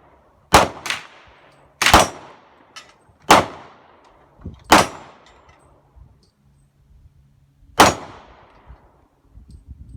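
Suppressed 6.5 Creedmoor rifle with a Thunder Beast suppressor firing a quick string of about six sharp shots, one to three seconds apart, with a longer pause before the last.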